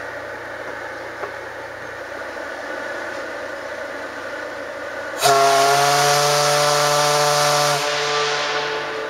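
Steam whistle of the steam tug SS Master blowing one long blast about five seconds in. It is a loud chord of several steady tones over a strong steam hiss, held for about two and a half seconds, then drops to a fainter tone that trails off. Before the blast there is a steady low background rumble.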